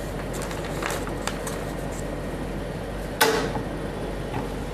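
Steady electrical hum and room noise, with a few faint handling clicks as a hand reaches across the desk, and one brief sharper sound about three seconds in.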